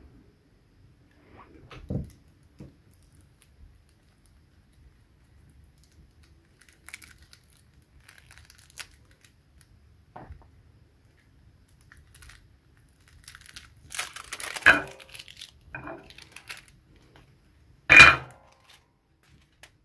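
Soldering tools being handled on a wooden table: scattered rustling and light clicks, a cluster of rattling with a sharp knock about fifteen seconds in, and a louder knock near the end as something is set down.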